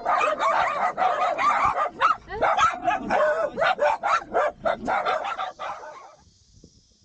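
Several dogs barking and yipping in quick succession, breaking off about six seconds in.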